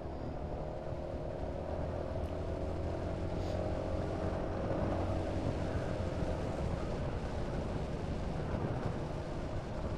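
Honda Forza 350 scooter's single-cylinder engine running at a steady cruise under an even rush of wind and road noise.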